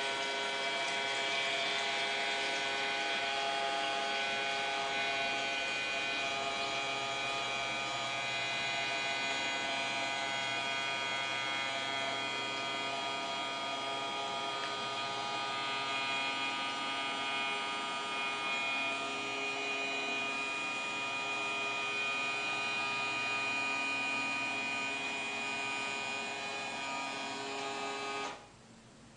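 Small submersible pump's electric motor running steadily with a humming, buzzing whine, then cutting off suddenly about a second before the end.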